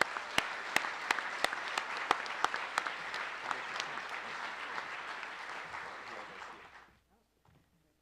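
Audience applauding, with a few sharp single claps standing out above the rest in the first seconds; the applause dies away about seven seconds in.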